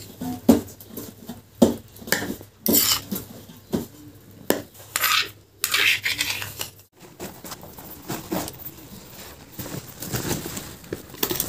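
Metal spoon scraping and clinking against a stone mortar as crushed radish is scooped out into a plastic bowl, in irregular scrapes and knocks. After about seven seconds the sounds turn softer and more scattered.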